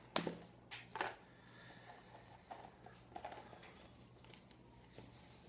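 Quiet handling of cookie packaging: three sharp clicks or crackles in the first second, then a few softer rustles.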